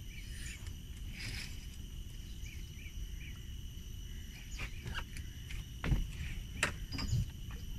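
Outdoor creek ambience: a steady low rumble under a high, steady insect hum, with small repeated chirps in the first half. From about four and a half seconds in, several sharp clicks and knocks.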